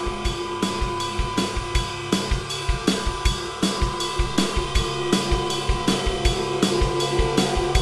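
Hard rock song intro: a drum kit plays a steady beat of kick, snare and cymbal hits over sustained held notes.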